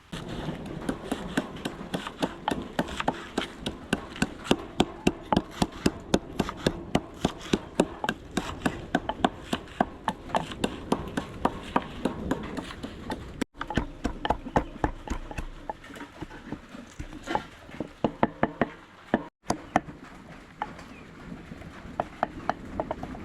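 Quick, regular chopping strikes on a cutting board, about four to five a second, thinning out near the end; the sound cuts out briefly twice.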